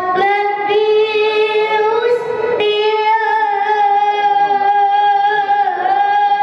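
A female voice singing long, held notes that slide slowly from one pitch to the next.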